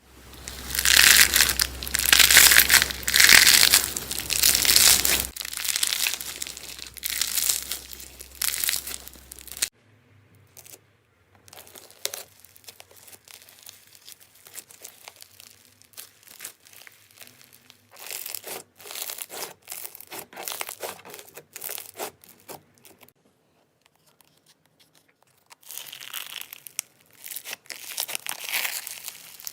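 Slime being squeezed, stretched and poked by hand, giving a crackling, crinkling sound. It comes in several separate bouts, loudest in the first ten seconds.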